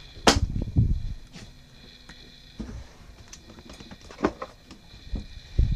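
Small objects being handled and set down on a wooden table: a sharp knock, then a couple of dull thumps, and a single click a little past four seconds in. A faint steady high whine runs underneath.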